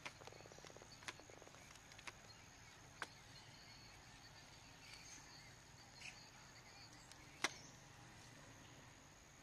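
Mostly quiet, with about five sharp clicks and knocks as a baby monkey grabs and pulls at the legs of a camera tripod. The loudest knock comes about three-quarters of the way through.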